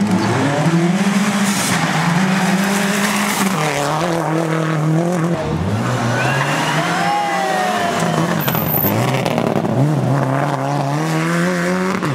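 Subaru Impreza rally cars' turbocharged flat-four engines revving hard as they accelerate through a stage, the note climbing and dropping with each gear change.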